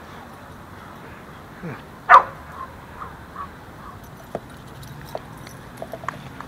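A dog barks once, loudly, about two seconds in, followed by a few short, much softer calls; scattered light clicks follow later.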